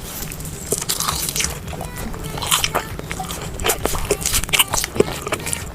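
Close-up crunchy biting and chewing of food: a stream of irregular crackles and crunches, with several louder bites in the second half.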